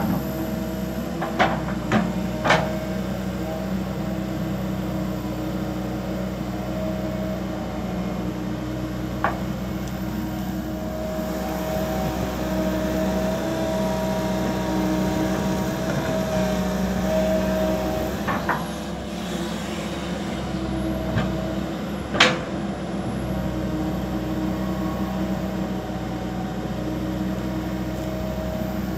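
Komatsu PC200LC hydraulic excavator working soil, its diesel engine running steadily under load. A few sharp clanks come from the bucket and arm, three close together near the start and the loudest about three-quarters of the way through.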